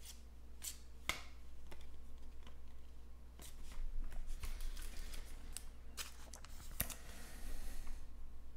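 Trading cards being handled and shuffled by hand: a string of sharp clicks as card stock snaps and taps against card stock, with short stretches of rustling as cards slide over each other.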